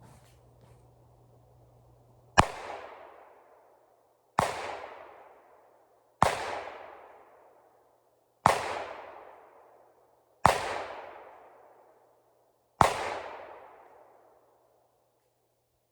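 Six single gunshots fired about two seconds apart, each ringing out in an echo that dies away over a second or so.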